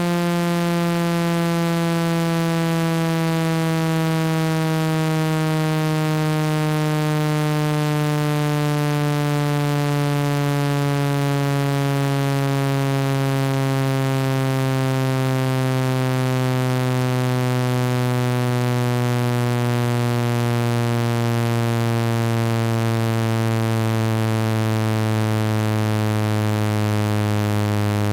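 Synthesized speaker-cleaning tone, played loud to vibrate water and dust out of a phone speaker: a steady buzzy tone that slowly falls in pitch.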